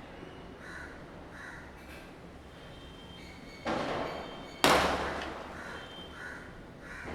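Two firecracker bangs about a second apart, the second louder and sharper, each trailing off. Crows caw now and then around them.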